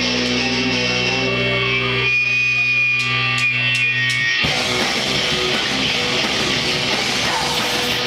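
Live rock band with electric guitars, bass guitar and drums. Held guitar notes ring on for about four seconds, with a few sharp clicks near their end, then the full band comes in loud and dense just past halfway.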